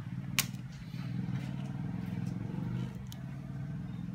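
Sharp plastic click about half a second in and a second click near three seconds, as the phone's frame is pried open with a thin opener tool, over a steady low mechanical hum like an engine running.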